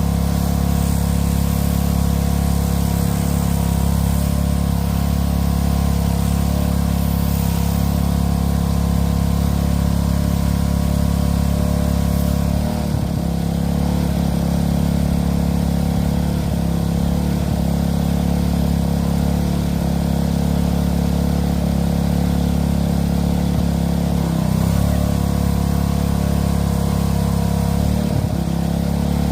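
Small gas engine of a Craftsman pressure washer (Briggs & Stratton Intek 206) running steadily, dipping briefly in pitch a few times.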